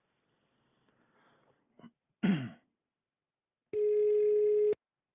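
Telephone ringback tone heard by the caller while the called line rings: a single steady tone lasting about one second, starting just under four seconds in. A short low sound with falling pitch comes about two seconds in.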